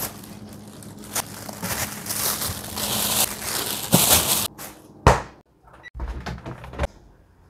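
Plastic bags rustling and crinkling as bags of chicken are packed into a fridge freezer. A single loud thud comes about five seconds in, then a few clicks and knocks as the plastic lid of a top-loading washing machine is handled.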